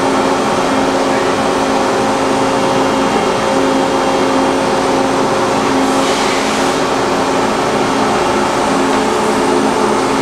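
Steady hum of a powered-up Niigata HN50A CNC horizontal machining center standing idle, with a few steady tones in it. A brief hiss comes about six seconds in.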